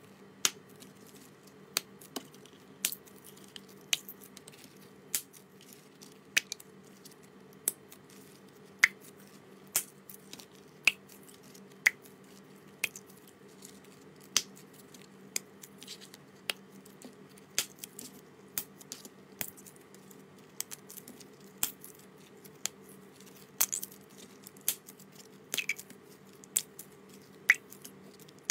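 Small zip-lock plastic packets of red slime being pulled open one after another, each giving a sharp plastic snap, about once a second.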